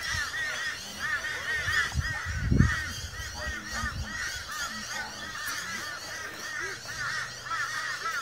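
A flock of birds calling in a dense chatter of quick, repeated notes, with a dull thump about two and a half seconds in.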